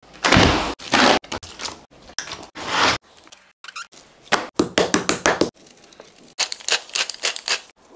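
Raw butterflied chicken breast slapped and laid down on a wooden cutting board in a series of wet thuds, the loudest in the first few seconds. Near the end comes a quick patter of fine ticks as salt is sprinkled over the meat.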